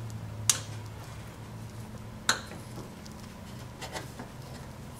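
A ball-end Allen wrench clicking against metal as it is fitted to the transmission's oil level plug: two sharp clicks about two seconds apart, then a few lighter ticks, over a low steady hum.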